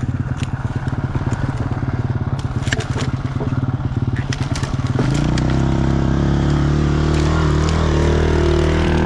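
Two-stroke dirt bike engine running at low speed with a fast pulsing beat, over knocks and scrapes from the rough trail. About five seconds in it goes to a steadier, louder drone as the throttle opens.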